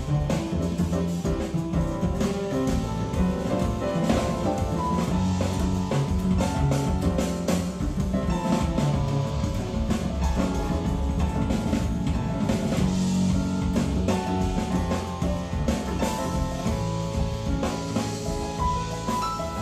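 Recorded music: an instrumental passage of a song with drum kit and other instruments playing steadily, without singing.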